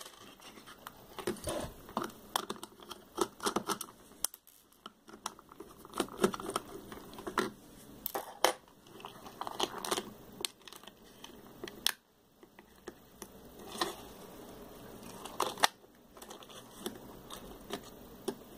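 Small hard-plastic parts of a hand-press dynamo flashlight being handled and pulled apart, making irregular clicks, taps and light rustling scrapes.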